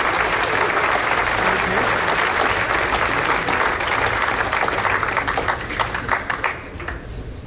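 Concert audience applauding. The clapping thins out to scattered single claps and dies away near the end.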